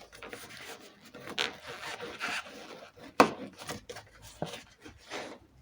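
Irregular scraping and rubbing of door parts being worked by hand, with a sharp click or knock about three seconds in.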